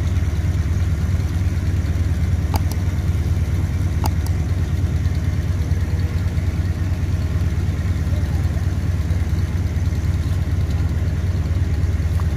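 An engine idling steadily, a low even hum, with two light clicks about two and a half and four seconds in.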